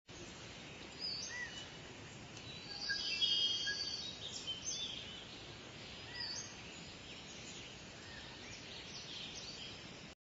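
Small birds chirping and whistling in short calls over a steady background hiss. A burst of trilling calls about three seconds in is the loudest part, and the sound stops abruptly near the end.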